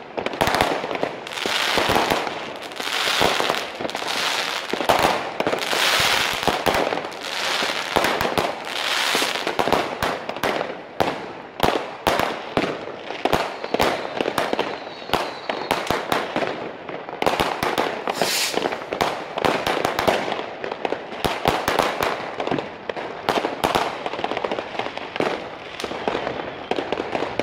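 Fireworks: a dense, unbroken barrage of bangs, pops and crackles as many rockets and firecrackers go off at once, with no pause.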